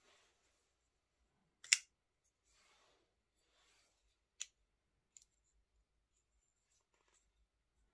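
Titanium frame-lock flipper knife, WESN Allman, being worked by hand: a loud sharp snap as the blade is flipped open and locks, a second quieter snap a few seconds later, then a few light clicks. Soft rubbing of fingers on the handle between the snaps.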